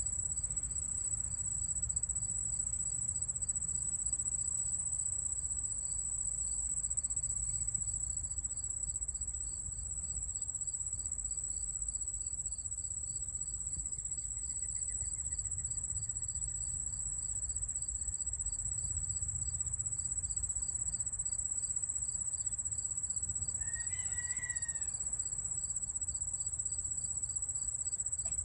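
Crickets or similar insects calling: a continuous high-pitched trill, with a lower pulsing chirp repeating about three times a second and a low background rumble. Late on, a bird gives one short call.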